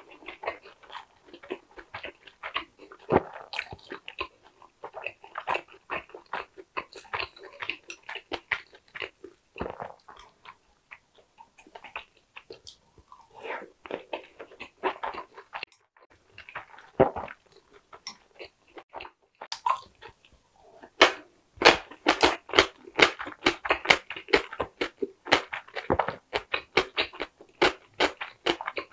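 Close-miked, wet chewing of a mouthful of Korean king dumpling (wang mandu), soft smacking and squelching strokes in an irregular run. It pauses briefly a few times, then turns faster and steadier for the last third.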